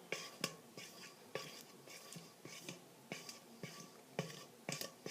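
A utensil stirring glue and dish soap in a bowl, clinking against the bowl's sides in irregular light taps, about two a second.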